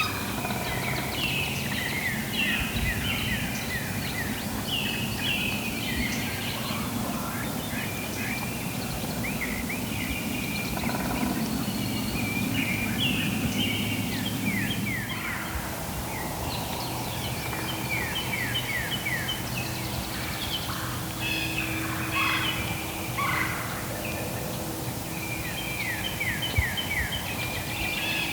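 Wild turkey gobbling several times, each gobble a quick run of falling notes, with a low steady hum coming in about halfway through.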